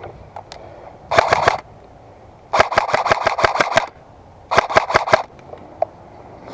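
Airsoft gun firing three full-auto bursts of rapid sharp shots, the middle burst the longest.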